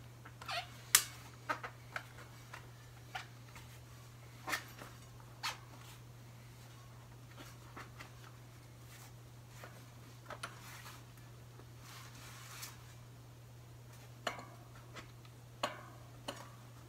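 Scattered sharp clicks and brief light rubbing as a new whitewall bicycle tire and its inner tube are worked by hand onto a spoked rim. The clicks come unevenly, the loudest about a second in, most of them in the first few seconds.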